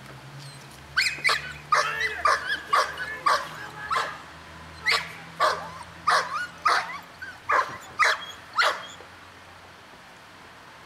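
An upset dog barking: about fifteen sharp barks in quick succession with a short break near the middle, stopping about nine seconds in.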